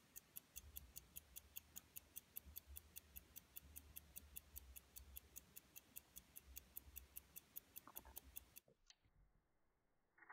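Poljot Kirova observation watch's calibre 53303 mechanical movement ticking faintly and evenly, about five ticks a second. The ticking stops about eight and a half seconds in, leaving a faint click near the end.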